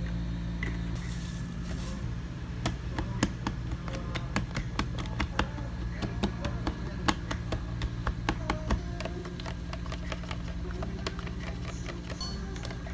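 Plastic straws stirring drinks in plastic cups: a quick, irregular series of clicks and taps against the cup walls, over a steady low hum.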